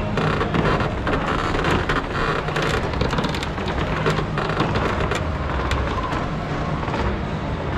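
Jeep 4x4 running on an off-road demonstration course: a steady low engine rumble under a dense crackling noise, busiest for the first five seconds and then a little lighter.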